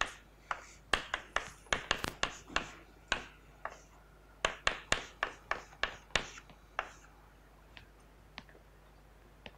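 Chalk writing on a blackboard: a quick run of sharp taps and short scrapes as each stroke is made, thinning to a few faint ticks after about seven seconds.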